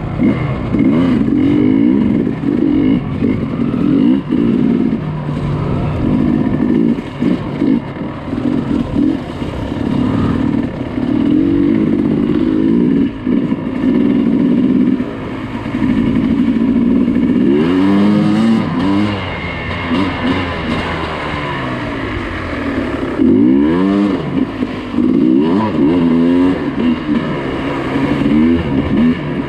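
Dirt bike engine ridden over rough trail, the throttle opened and closed again and again so the pitch rises and falls in repeated surges, with clear revs about two-thirds of the way through and again near the end.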